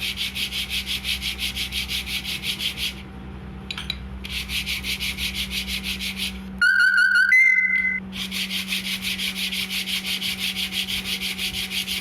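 A motorcycle's front disc brake pad being rubbed back and forth on sandpaper, about five quick rasping strokes a second, to scrape off the dust that makes the pad slip on the disc and squeak. The strokes pause briefly after about three seconds, and in the middle a loud two-note whistle-like tone cuts in for about a second and a half before the sanding resumes.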